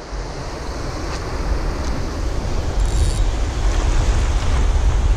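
Wind buffeting the action camera's microphone as a low, uneven rumble, over the hiss of small waves washing across a shallow reef shelf.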